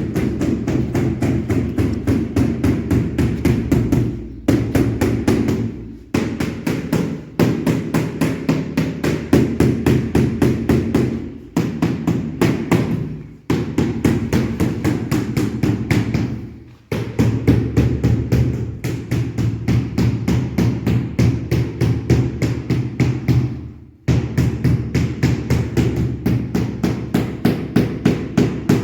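Rapid, regular hammer-like tapping, several knocks a second, coming in runs of a few seconds with short breaks, over a steady low hum; typical of a mallet bedding tiles during installation.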